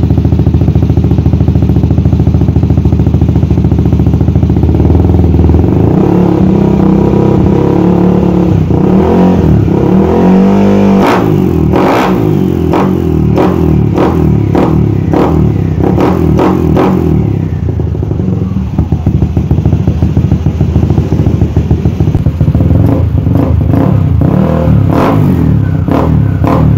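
Yamaha NMAX scooter's 230cc bored-up single-cylinder engine running loud through an aftermarket exhaust. It holds steady, then is revved down and back up about nine to eleven seconds in. A run of sharp pops comes through the second half.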